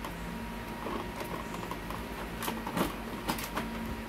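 A handful of short plastic clicks and knocks as hands press on and handle the toner cartridges and front of an open colour laser printer, mostly in the second half, over a steady low hum.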